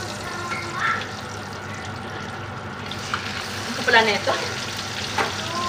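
T-bone steak laid into a pan of hot oil, sizzling, the sizzle growing brighter about three seconds in as the meat hits the oil.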